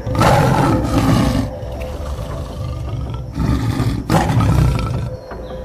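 Lion roaring twice, a long deep roar in the first second and a half and another from about three and a half seconds in, over a background music bed of sustained tones.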